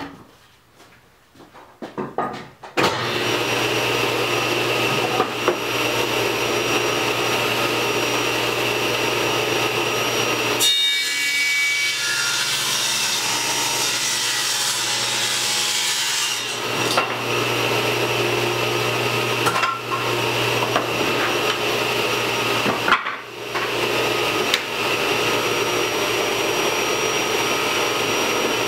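Table saw running and ripping a thick pine 2x8 board to width, the blade cutting through the wood over a steady motor hum. The sound comes in sharply about three seconds in, after a few faint knocks.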